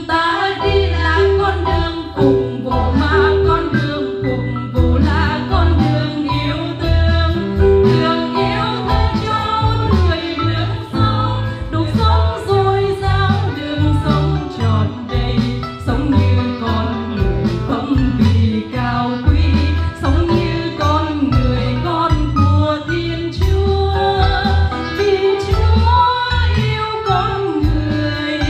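Group of nuns singing a Vietnamese religious song together into microphones, over instrumental accompaniment with a steady pulsing bass beat.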